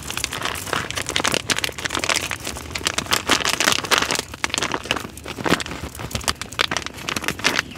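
Plastic packet crinkling and rustling in the hands as wet hemp seed, juice and all, is squeezed out of it into a bucket of carp bait.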